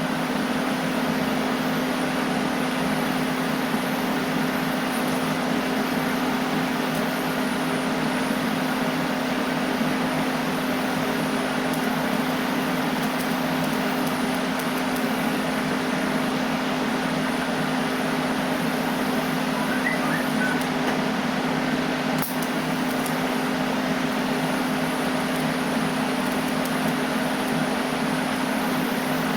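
Steady machine noise: a constant low hum with a hiss over it that never changes.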